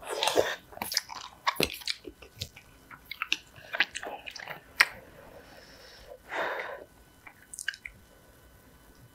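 Close-miked eating of spicy instant noodle soup (Buldak): a slurp right at the start, then chewing with small wet mouth sounds and sharp clicks, one louder about five seconds in. A short rushing sound comes about six and a half seconds in.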